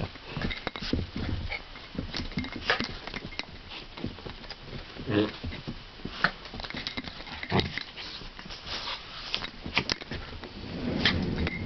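Two poodles playing and tussling close up, with irregular scuffles and short dog noises.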